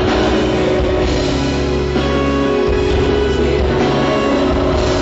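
Live rock band music, an instrumental passage with guitar, bass and drums and no singing; the low bass notes change about halfway through.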